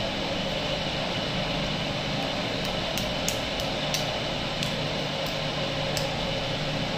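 Steady background hiss and hum, with a run of about eight light clicks from about two and a half seconds in to six seconds in as wooden ice-cream sticks are handled and knocked together over steel cups.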